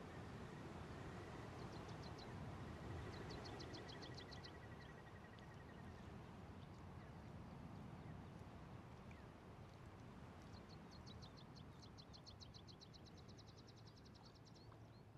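Faint outdoor ambience with a low steady rumble, over which a bird sings rapid high trills: two bursts in the first few seconds, then a longer trill about ten seconds in that lasts some four seconds. A thin, steady high note also sounds for a few seconds near the start.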